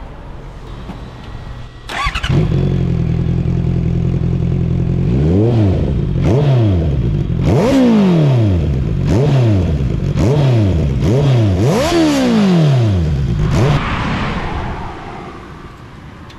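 Honda CBR650R inline-four through an Ixil Hyperlow Black XL exhaust: the engine starts about two seconds in and idles steadily. It is then revved seven times in quick blips, each rising and falling in pitch, and cuts off suddenly near the end.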